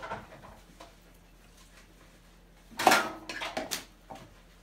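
Metal kitchenware clattering: one loud sharp clank with a brief ring about three seconds in, followed by several lighter clicks and knocks.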